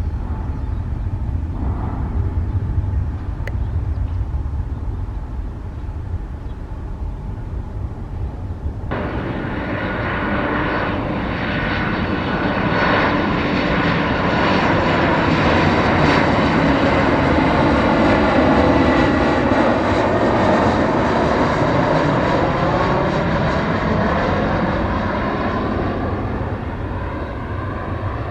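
Jet airliner engines passing close by. After a low rumble, the jet noise comes in suddenly about nine seconds in, swells to a peak with a whine that bends downward in pitch as the aircraft goes past, then slowly fades.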